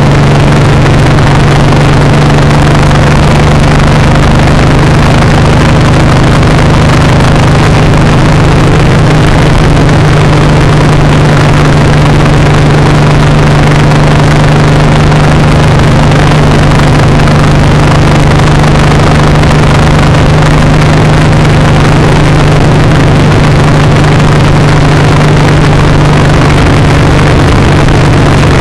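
Suzuki M109R (VZR1800) 1783 cc V-twin running at a steady motorway cruise, its drone holding one pitch throughout. Heavy wind rush lies over it on the microphone.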